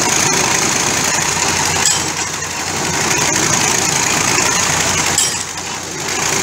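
Engine of a piling winch machine running steadily while it works the boring rig, with a few faint knocks.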